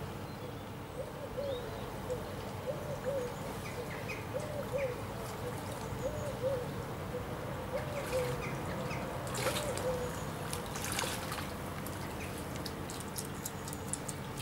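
Shallow river water running steadily, with a bird's low cooing call repeated about seven times, roughly once a second, over the first half, and a couple of brief splashes from a swimming otter about ten seconds in.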